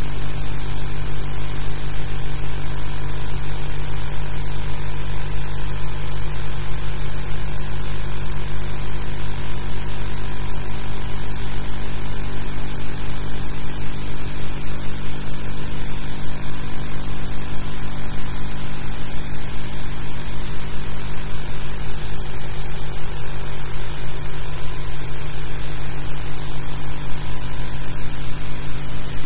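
Steady electrical hum with hiss, unchanging throughout: the noise of an old film soundtrack or transfer, with no other sound standing out.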